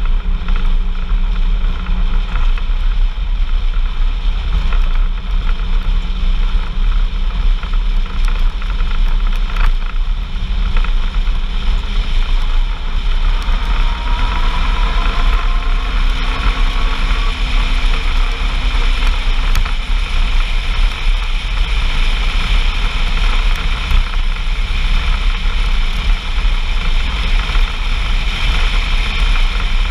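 Off-road vehicle driving at speed: a steady low engine rumble under heavy wind and road noise on the microphone, with a faint rising tone near the middle.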